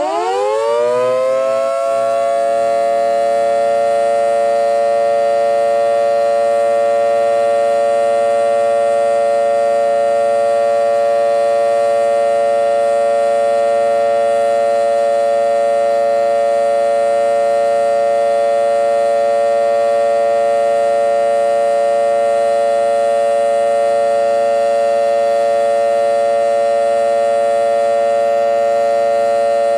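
Two Federal Signal Model 2 electromechanical warning sirens sounding together. Their pitch climbs back up over the first couple of seconds, then holds a steady wail: the steady alert signal. The recording is overloaded.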